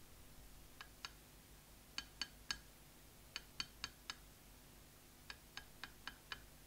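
Light, ringing clinks of a small hard object being tapped, coming in short quick groups of two to five, while touch-up colour is mixed by hand.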